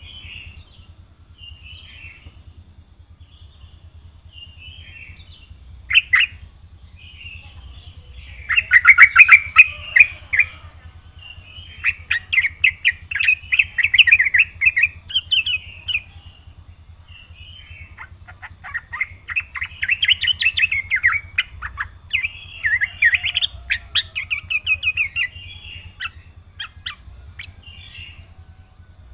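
Yellow-vented bulbul singing in bursts of rapid chattering, bubbly phrases separated by short pauses, loudest through the middle. A faint steady high tone and a low hum run underneath.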